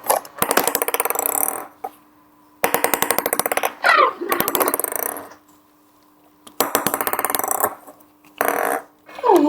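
FurReal Dazzlin' Dimples My Playful Dolphin toy playing its dolphin sounds through its speaker: several short bursts of rapid clicking chatter with pauses between them, and a falling whistle about four seconds in.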